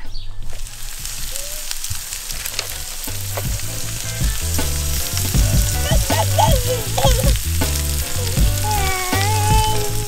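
Pork roast sizzling in a foil tray on a Weber barbecue grill, a steady hiss. Background music with a stepping bass line comes in about three seconds in.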